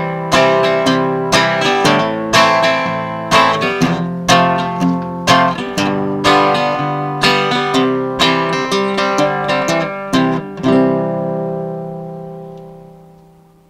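Guitar strummed in a steady rhythm, about two chords a second, playing out the end of a song. A last chord about eleven seconds in rings out and fades almost to silence.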